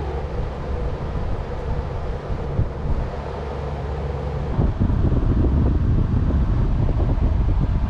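Wind buffeting the microphone over a steady low mechanical hum. The rough rumble of the wind gets louder a little past halfway and stays up.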